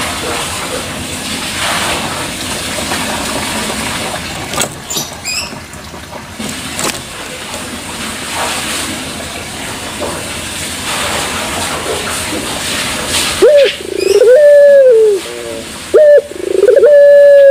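A young puter pelung (domestic ringneck dove), about three months old, cooing loudly about 13 seconds in: a rising note, a long held coo that drops at its end, a short coo, then another long held coo. Before the coos there is a long stretch of steady noise.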